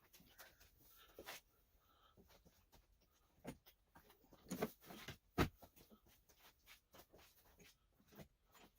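Scattered light clicks and knocks of hand tools and parts being handled while a motorcycle is taken apart, with a few sharper knocks a little past the middle.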